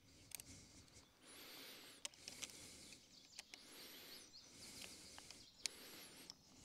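Near silence, with a few faint clicks and taps of e-bike handlebar parts and tools being handled during assembly, the sharpest about five and a half seconds in. Faint high chirping is behind them.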